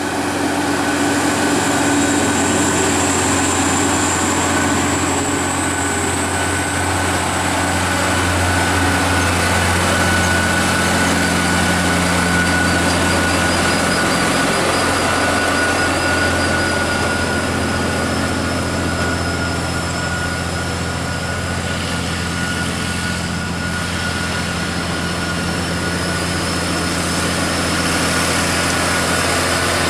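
Heavy diesel dump-truck engine running steadily at an even low pitch, with a thin steady whine above it.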